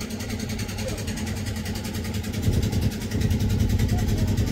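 Engine of a wooden lake tourist boat running steadily under way, with an even, rapid rhythm to its note.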